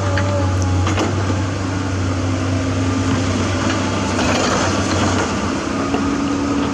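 Heavy diesel construction machinery running steadily at a construction site, with a low, even engine hum and a sharp knock about a second in.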